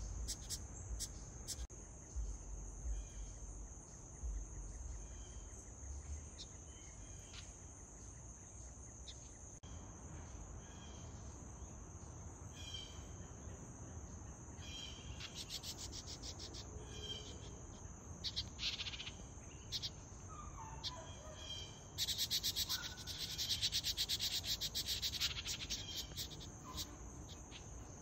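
A steady, high-pitched insect trill runs throughout. Wrens at the nest box give rapid chattering calls in short bursts through the middle, then a longer, louder run of chatter near the end.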